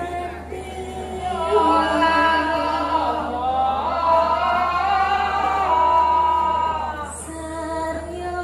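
A sinden, the female singer of Javanese gamelan music, singing held, gliding notes over a steady low hum. The singing grows fuller and louder about a second in and thins again near the end.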